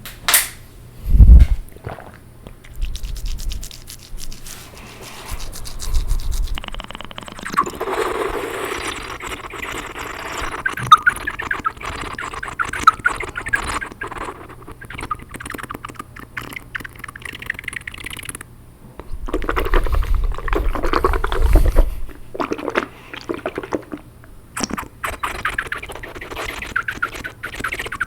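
Close-miked wet mouth sounds made with water in the mouth: a run of wet clicks, smacks and crackles. A few loud low bumps on the microphone come near the start, around six seconds in, and again about two-thirds of the way through.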